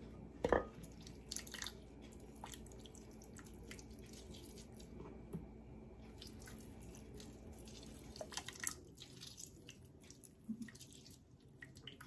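Limes squeezed by hand over a clay mortar: faint drips of juice and small squishes and clicks, with a sharper click about half a second in and a cluster of clicks around eight seconds.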